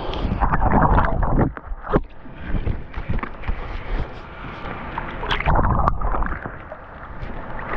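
Pool water splashing and sloshing as a swimmer strokes and kicks, in uneven surges with a few sharper slaps.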